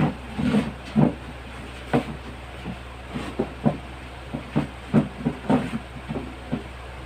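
Irregular soft knocks and creaks, about two a second, as a person's legs are lifted and settled onto a woven rattan chair and the bed, over a steady hum.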